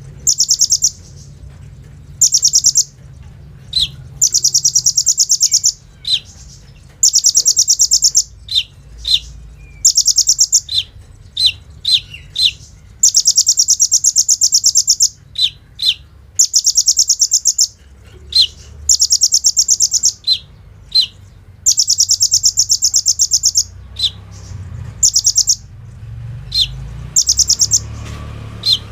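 Kolibri ninja sunbird singing, a run of rapid, very high, machine-gun-like trills about a second long each, repeated with short gaps. Between them come single short, sharp, high notes.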